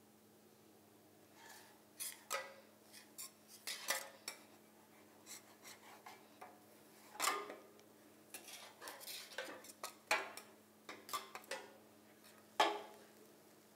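A metal utensil clinking and scraping against a plate in irregular sharp taps, as pieces of chicken are moved around on it, over a faint steady hum.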